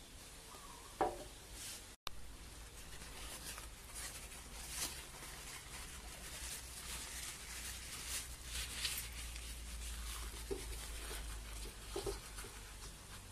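A single knock about a second in, then tissue paper rustling and crinkling as a sheet is pulled from a stack, folded and pressed into a glass.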